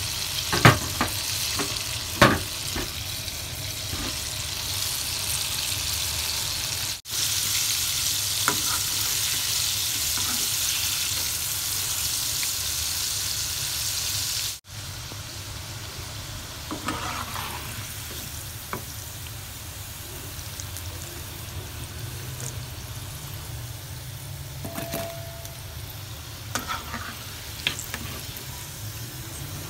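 Breaded chicken pieces deep-frying in a wok of hot oil: a steady sizzle that cuts out abruptly twice and is louder between the two breaks. A couple of sharp knocks come in the first few seconds, and near the end a metal slotted spatula scrapes and clicks as it turns the pieces.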